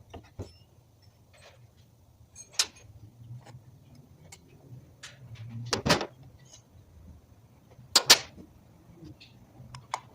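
Scattered clicks and knocks of hand work on an electric scooter's wheel and tyre, the loudest a single knock about six seconds in and a quick double knock about eight seconds in.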